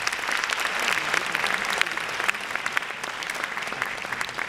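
Audience applauding, many hands clapping in a steady patter that eases off slightly toward the end.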